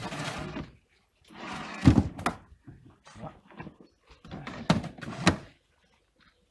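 Plastic vegetable crates being slid and set down on a flatbed cart, with scraping and sharp knocks as they land. The loudest knocks come about two seconds in and twice more near the five-second mark.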